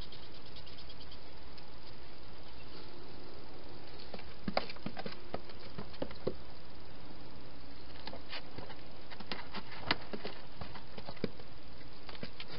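A wild hedgehog inside a clear plastic feeding box, making scattered, irregular clicks and taps as it moves and feeds, over a steady hiss.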